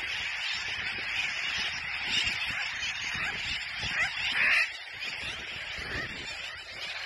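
A dense, continuous chorus of many seabirds calling over their colony, with wind buffeting the microphone. One louder call stands out about four and a half seconds in.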